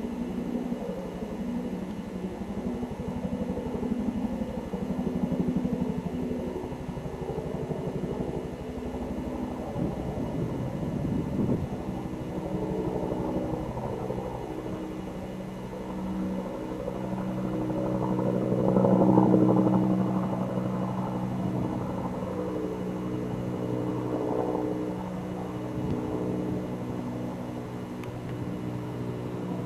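An engine running steadily with a low hum, swelling louder about two-thirds of the way through.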